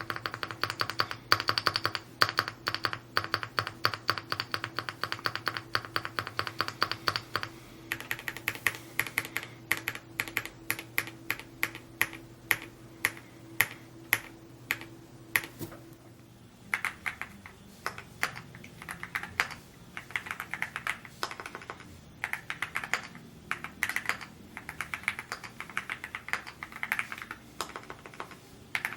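Rainy75 mechanical keyboard being typed on quickly, a fast stream of key clicks. About seven seconds in, the keystrokes change character, and from there they come in irregular runs.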